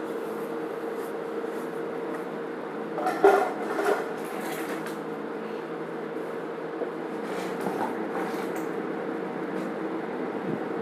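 Steady mechanical hum with a couple of faint steady tones, and two short, louder sounds about three and four seconds in, followed by fainter hissing a little later.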